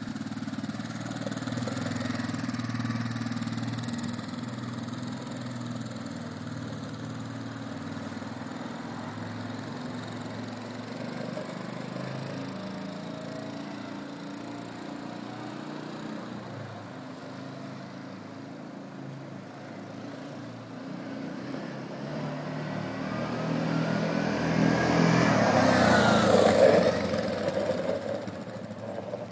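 Utility ATV (quad bike) engine running as it is ridden around, quieter in the middle as it moves off, then growing loud as it comes back close about three-quarters of the way through, with rising revs at its loudest.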